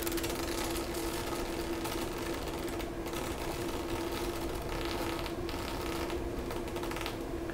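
Small high-voltage arc jumping from a homemade 30 kV ZVS-driven supply's output terminal to a crocodile clip: a steady, fine crackling buzz over a constant hum. The arc is kept weak by a large ballast resistance in the output, so it can be held continuously without damaging the supply.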